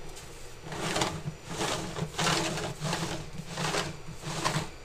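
A large 3D-printed plastic cap being screwed by hand onto a threaded plastic body: the printed threads grate against each other in about six short scraping turns, a little under a second apart.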